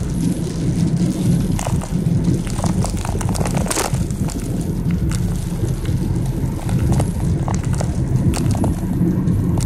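Raindrops tapping on a car windshield, heard from inside the car: scattered, irregular ticks over a steady low rumble, with one louder tap about four seconds in.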